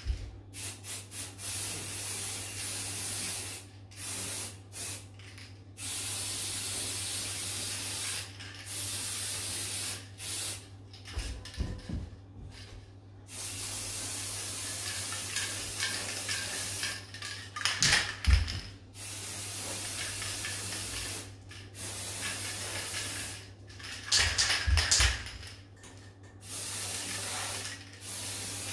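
Aerosol spray paint can hissing as silver paint is sprayed onto a wooden table frame, in repeated bursts of one to several seconds with short pauses between them. A few short knocks come in the middle and later on.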